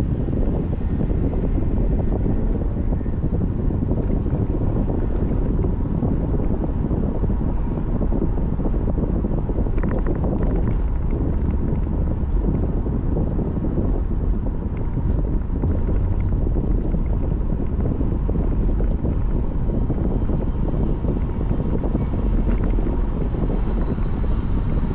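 A car driving on city streets: steady low road and engine rumble with no change in pace.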